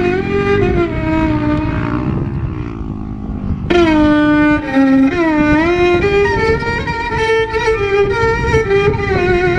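Background music: a violin-like melody with sliding notes, growing fuller about four seconds in.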